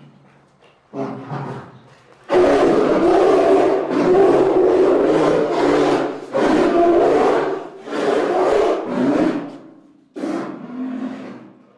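Polar bear calling in a series of rough, drawn-out vocalizations. A short call comes about a second in, followed by four longer calls, the first lasting about four seconds.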